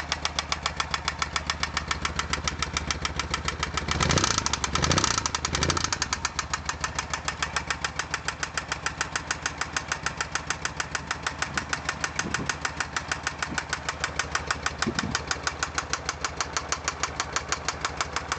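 Lada Oka's two-cylinder engine running with a sharp, regular connecting-rod knock, blipped three times about four to six seconds in. The knock comes from a destroyed big-end bearing shell in the first cylinder, beaten out by low oil pressure from a clogged oil pickup.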